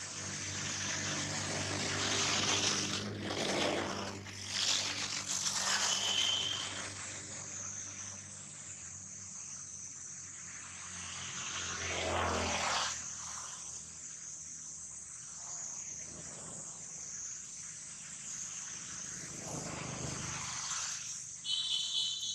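Outdoor ambience: a steady high drone of insects, with a low engine rumble that swells and fades several times, loudest a few seconds in and again around the middle. There are a couple of short high chirps near the end.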